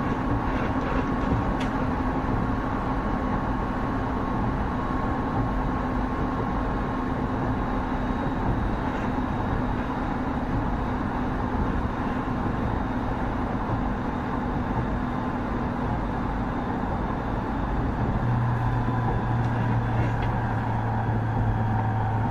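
Running noise of a 209 series 2000-subseries electric multiple unit (Mitsubishi IGBT VVVF) travelling at steady speed: a continuous rumble of wheels on rail with steady tones from the running gear and a few faint clicks. A low hum starts near the end.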